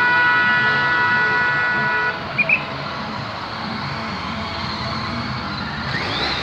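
A vehicle horn held in one long blast that cuts off about two seconds in, followed by two quick short high beeps. After that comes the steady noise of cars and a motorcycle driving past, with a short rising tone near the end.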